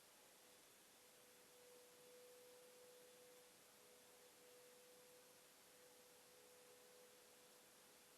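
Near silence: the audio is turned down, leaving only a faint hiss and a faint steady tone.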